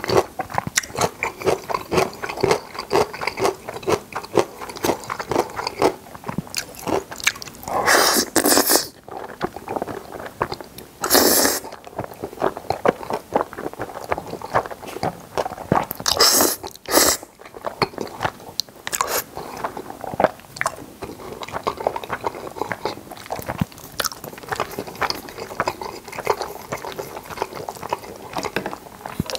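Close-miked eating of carbonara spaghetti: wet, clicky chewing and mouth sounds throughout, broken by a few short, loud noodle slurps, two of them close together, in the middle stretch.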